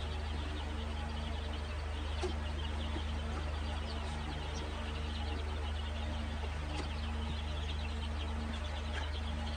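Baby chicks peeping continuously, many short high cheeps overlapping, over a steady low hum.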